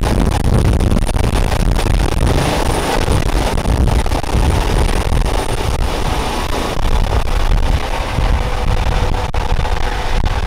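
Airbus EC135 T2+ helicopter taking off and climbing overhead: its twin Turboméca Arrius 2B2 turboshaft engines and rotor running at full power, with a heavy low rumble and a steady high turbine whine.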